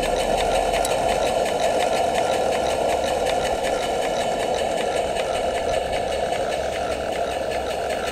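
Small model Dolbeer steam donkey's engine and winch running steadily with a fast, even mechanical clatter.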